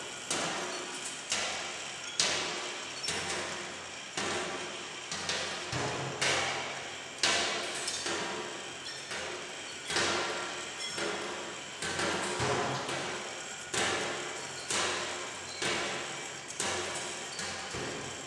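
Motorised scrap-metal kinetic sculpture in the manner of Jean Tinguely running, its mechanism clanking with a steady rhythm of sharp metallic knocks about once a second. Each knock rings briefly, with lighter clatter in between.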